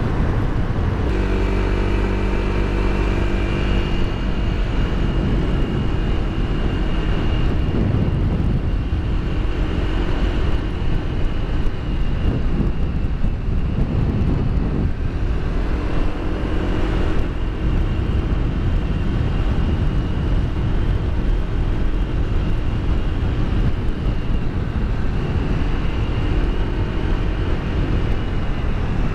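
Wind rushing over a helmet-mounted camera's microphone on a motorcycle at road speed, with the motorcycle's engine running steadily underneath; its engine note stands out more clearly a second or so in and again around the middle and near the end.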